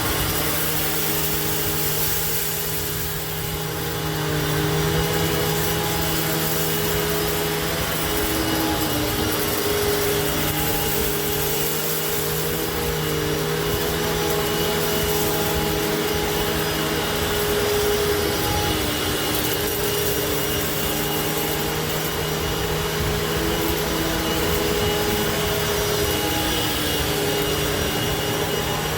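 2006 Hoover WidePath Fold Away upright vacuum cleaner running steadily, its hum shifting slightly in pitch now and then.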